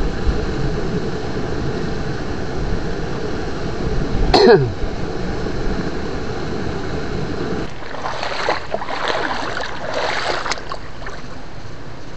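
Steady rush of moving water with irregular splashing from about eight to ten and a half seconds in. About four seconds in, one short loud sound slides down in pitch.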